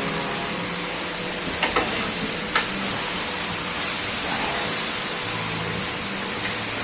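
CNC lathe working a long piston rod: three sharp mechanical clicks about two seconds in as the tool turret moves into position, then the spindle turning and the coolant spray giving a steady hiss while the tool makes a light facing cut.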